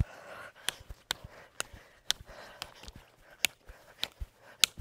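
Bare-fisted punches landing on a hanging water-filled Tidal Tank punching bag, about two sharp strikes a second, with her breathing heard between them.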